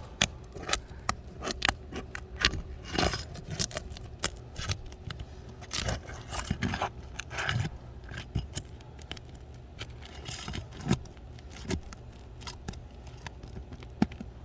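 A metal shingle-separating tool working between asphalt shingles to break the seal between them, giving irregular scrapes and many sharp clicks and snaps. The shingles are stuck together.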